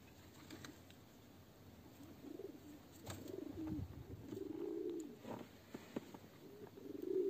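Pigeons cooing: a run of low, drawn-out coos starting about two seconds in, with a few sharp clicks between them.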